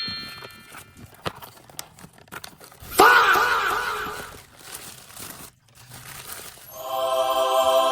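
Packaging crinkling and tearing as a parcel is unboxed. About three seconds in, a loud, sudden, warbling pitched sound lasts just over a second. Near the end a steady held tone sounds for about a second and a half.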